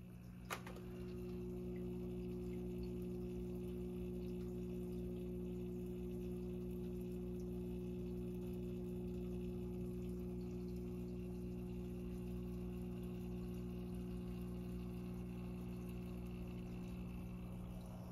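Goldfish-tank air pump and filter running with a steady hum and a light sound of moving water; a single click about half a second in.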